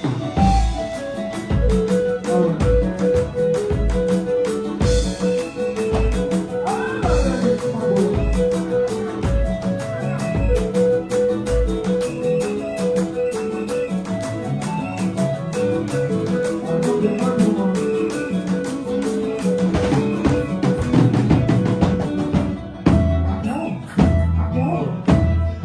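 Music: a repeating melodic line over a steady bass-drum beat, about one beat a second; the drum drops out about halfway through and comes back near the end.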